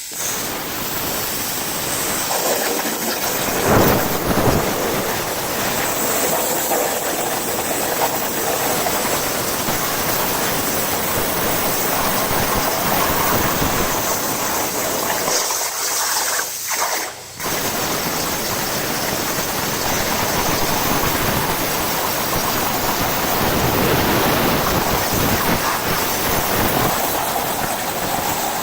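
Hypertherm Powermax85 plasma arc cutting through 3/4-inch mild steel plate: a loud, steady hiss with crackle. It surges briefly about four seconds in and dips for about a second around two-thirds of the way through.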